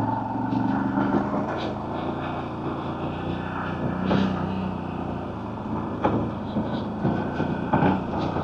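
CFMoto CForce 1000 ATV's V-twin engine running steadily on the move, with a few short knocks scattered through.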